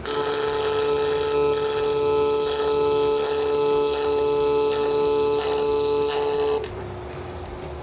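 MIG welding arc on steel plate: a steady crackling sizzle with a constant hum under it. It starts suddenly and cuts off about six and a half seconds in, when the bead ends.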